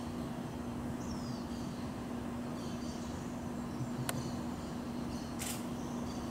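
Distant steady rumble of an Airbus A330-300's GE CF6-80E1 turbofans as the airliner climbs away after takeoff, under a steady low hum. Faint bird chirps come and go, with a sharp click about four seconds in and a brief hiss a second later.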